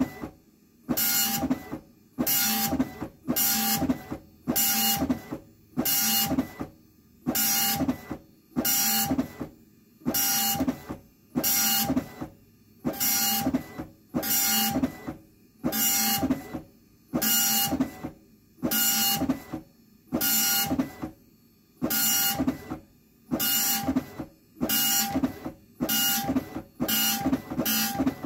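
Apple ImageWriter II dot-matrix printer printing graphics: the print head buzzes across the page in repeated passes, about one a second, with short quiet pauses between as the paper advances. The passes come a little quicker near the end.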